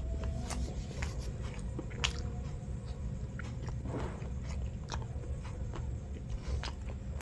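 A man chewing a mouthful of sweet bread topped with cheese and chocolate, with scattered short wet mouth clicks and smacks over a low steady hum.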